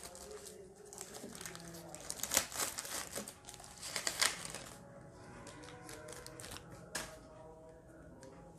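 Scissors snipping through plastic wrap, which crinkles as it is cut and pulled away, with the loudest crackles about two and four seconds in. Faint music plays underneath.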